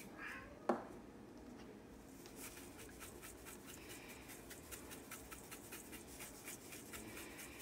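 A single sharp knock about a second in, then a run of light, quick scratchy taps, several a second, as a spice shaker is shaken over a bowl of raw chicken pieces.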